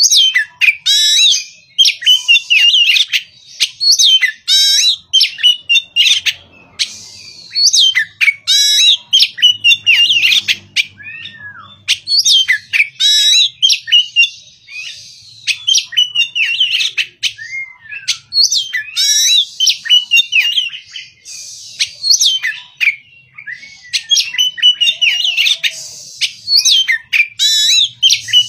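Oriental magpie-robin singing loudly: a long run of rapid, varied high whistled phrases in short bursts, with brief pauses between them.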